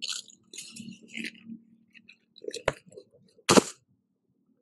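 A person moving about on a wooden deck between exercises: a few short hissy rustles, then two sharp knocks, one about two and a half seconds in and a louder one about three and a half seconds in.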